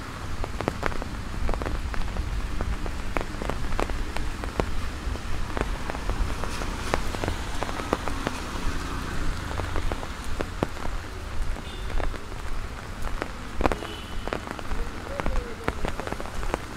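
Steady heavy rain falling on a wet road and trees, an even hiss with many sharp ticks of drops striking close by.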